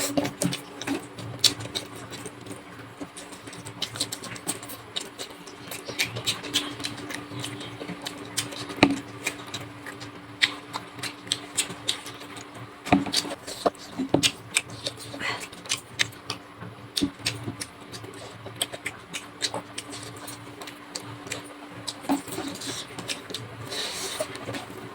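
Close-miked eating sounds of chicken curry and rice: wet chewing and lip-smacking clicks, many and irregular, over a steady low hum.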